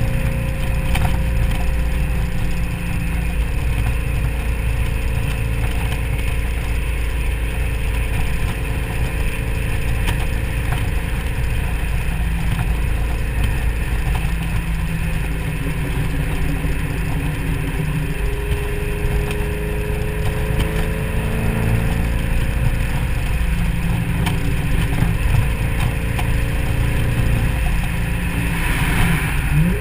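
2003 SVT Mustang Cobra's supercharged 4.6-litre V8 cruising at steady freeway speed, heard from the open-top cabin under heavy wind and road noise. The engine pitch starts to climb near the end.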